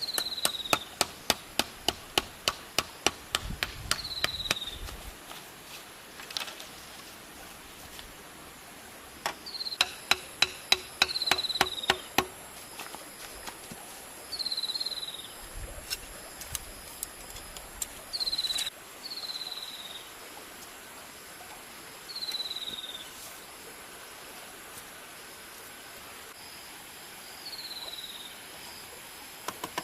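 Two runs of rapid hammer blows, about three or four a second, as a bamboo fence is built. Between and after them a bird repeats a short falling whistle every few seconds, over a steady high insect drone.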